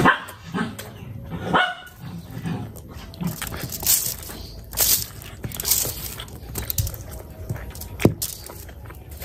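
Close-up eating sounds: hands squishing and mashing rice with oily curry, with chewing, lip smacks and a sharp click near the end. A short voiced call, like a bark, sounds about a second and a half in.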